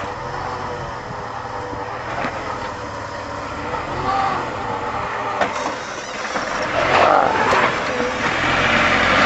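Jeep Wrangler engine running as it crawls over rock, growing louder toward the end, with a couple of sharp knocks in the middle.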